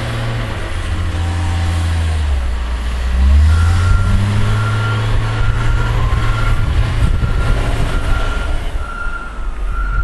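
Diesel engine of a John Deere wheel loader pushing snow, running under load and revving up about three seconds in. Soon after, its backup alarm starts beeping steadily, a short beep about every half second to two-thirds of a second.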